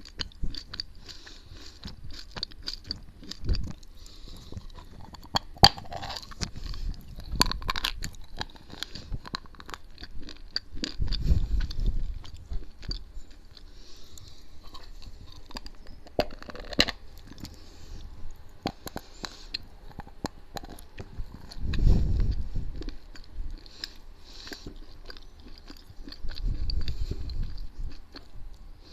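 Edible chalk being bitten and chewed close to the microphone: crisp, irregular crunches and crumbling. Three times a heavier, low rush of loud breathing swells up for about a second.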